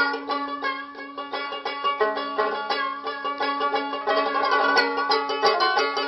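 Background music: a plucked string instrument picking quick, evenly paced notes over a steady held low note.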